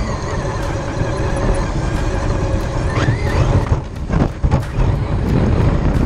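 Traxxas X-Maxx RC monster truck's brushless electric motor and drivetrain whining at speed over grass, over a low rumble of wind and tyres. About three seconds in the whine rises briefly, then the sound breaks up into uneven knocks and rumbles as the truck tumbles onto its side.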